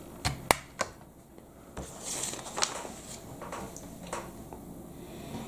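Plastic LEGO parts clicking as pieces are pressed together on a model tractor: three sharp clicks in the first second, then a brief rustle and a few quieter handling knocks.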